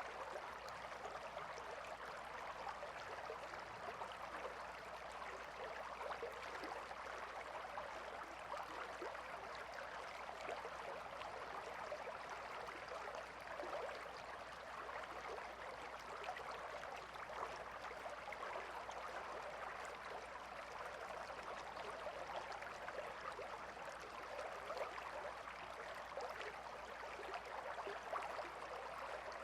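River water flowing in a calm, steady babble, a constant even rush with a fine trickling texture.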